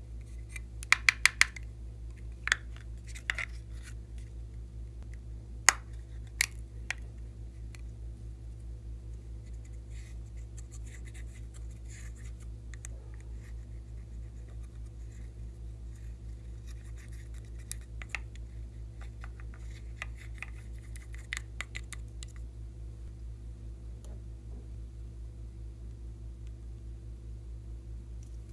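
Eyeshadow powder being scraped and tapped out of plastic makeup palettes into a glass dish: sharp clicks and taps, four in quick succession about a second in and several more over the next few seconds, then faint scratching, over a steady low hum.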